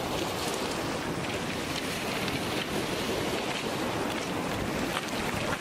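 Steady hiss of surf washing on a pebble beach, with wind buffeting the microphone.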